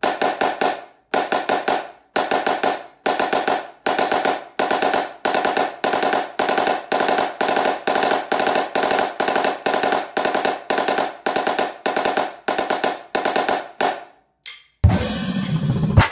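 Marching snare drum played with sticks in the single stroke four rudiment: repeated groups of four quick alternating single strokes, about two groups a second. Near the end the drumming stops and a short noisy logo sting with a low rumble plays.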